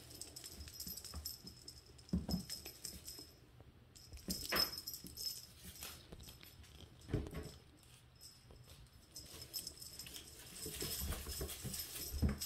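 Faint mewing of six-week-old Siamese and Balinese kittens, with a few soft knocks around two, four and a half and seven seconds in, and more scuffling near the end.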